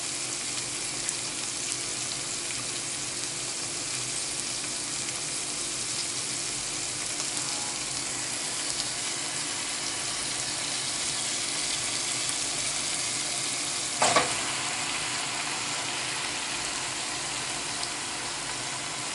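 A pan of sucuk frying, a steady sizzle, with a single brief knock about fourteen seconds in.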